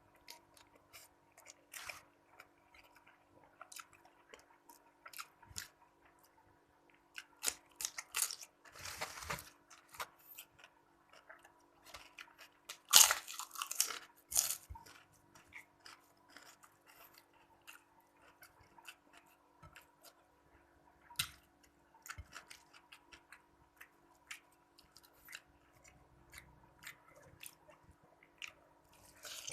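A person chewing and crunching food close to the microphone, with many small crackles and louder bursts of crunching about eight and thirteen seconds in.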